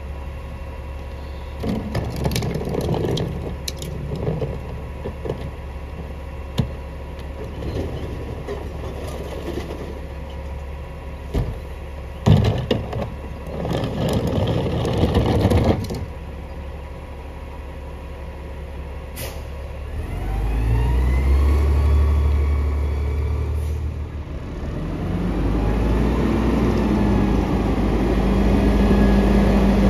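A Mack LEU garbage truck's natural-gas engine idling with a steady low hum. Bins and recyclables knock and clatter as they are emptied into the McNeilus rear-loader hopper, with a sharp bang about twelve seconds in and a few seconds of dense clatter after it. Then the truck pulls away, its engine rising in pitch and growing louder twice as it accelerates.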